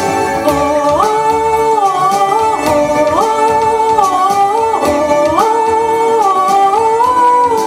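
Music: a melody of held notes stepping up and down, doubled in parallel, over a light steady beat.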